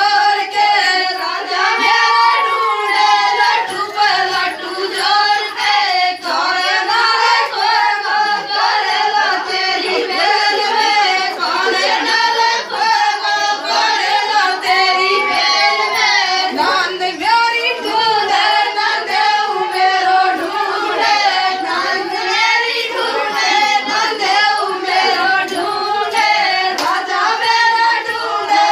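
Gurjar rasiya folk song sung in a rustic voice, with hand clapping, through the whole stretch.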